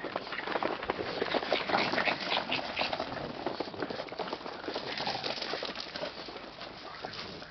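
Quick, irregular pattering and scuffing footsteps on asphalt and gravel as small pets scamper and chase each other, with the steps of someone walking along with them mixed in.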